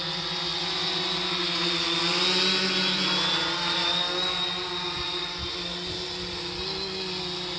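3DR Solo quadcopter with Emax MT2216 brushless motors flying close by: the steady whine and buzz of its four motors and propellers, growing a little louder about two seconds in, then easing.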